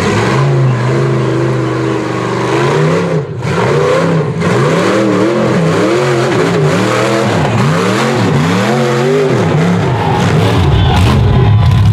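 Rock bouncer's engine revving hard as the buggy climbs a steep rock face. It holds a steady high note at first, then revs rise and fall again and again through the middle, and it stays wound up near the end.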